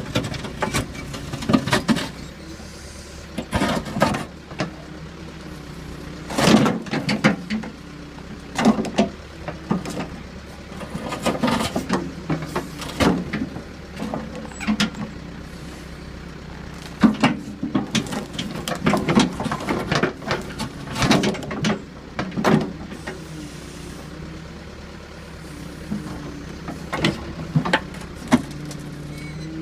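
Backhoe's diesel engine running under hydraulic load, its pitch rising and falling as the operator works the controls, with repeated irregular clunks and knocks as the bucket shakes a stump to knock the mud off it.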